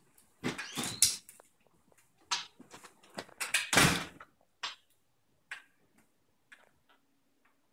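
A dog's scuffling run across a hard floor, then a clatter and rattle of a patio door handle as she tugs the rope toy hanging from it, loudest about four seconds in. A few light clicks follow.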